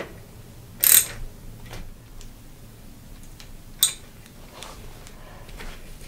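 Hand tool clicking and scraping on the metal bolts of a V-brake caliper as new brake pads are tightened into place. There is a brief loud scrape about a second in and a sharp click near four seconds, with fainter ticks between.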